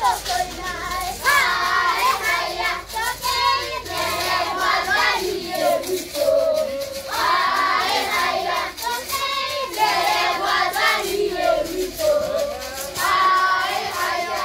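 A group of children singing a Kikuyu folk song together, with a louder, higher phrase coming back about every six seconds.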